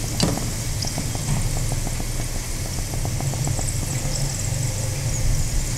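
Grated potato shreds sizzling and crackling in hot oil in a kadhai, over a steady low hum, with a single light knock just after the start.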